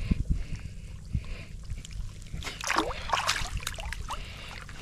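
Shallow, weedy water sloshing and splashing as people wade through it, over a steady low rumble. The splashing is loudest a little past the middle.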